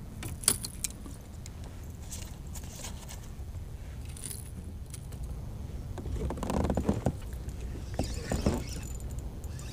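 Small clicks and rattles of fishing tackle being handled in a kayak, then a spinning reel being cranked in two short stretches in the second half, over a low steady rumble.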